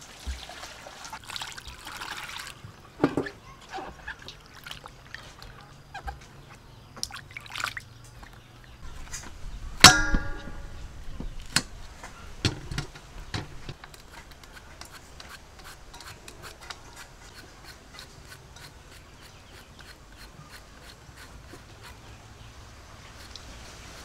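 Food-preparation sounds around stainless steel bowls: a short trickle of liquid poured into a bowl at the start and scattered knocks, then about ten seconds in a sharp clank that leaves a steel bowl ringing. After that, a long run of small quick clicks and scrapes as raw coconut palm heart is peeled and shaved.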